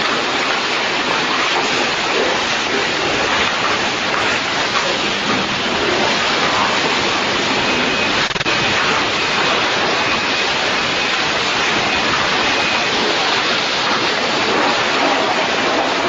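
A car wash running with a loud, steady rushing noise that hardly changes throughout.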